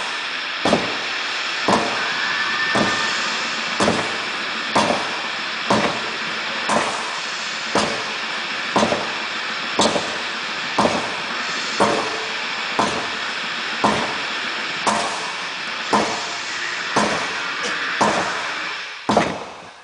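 Sledgehammer strikes landing in a steady rhythm, about one blow a second.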